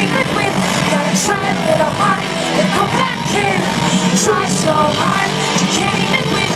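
Loud live rock music from a concert: a band playing with drum hits and a voice singing over it.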